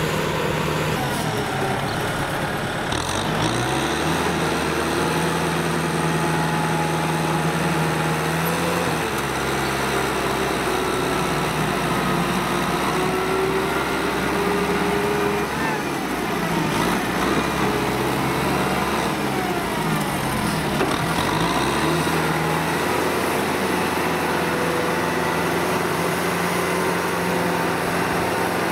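Kubota M6040SU tractor's four-cylinder diesel engine running under load while pulling a cultivator through deep paddy mud. Its engine speed dips and recovers several times, most clearly about three seconds in and again between about 16 and 22 seconds.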